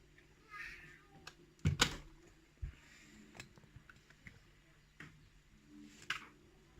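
A padlock and tools being handled on a work surface: scattered clicks and knocks, the loudest a double knock about two seconds in, followed by a dull thunk.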